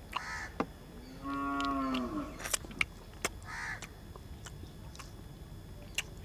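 A cow mooing once, a call of about a second that drops in pitch at its end, with crows cawing briefly before and after it and a few sharp clicks.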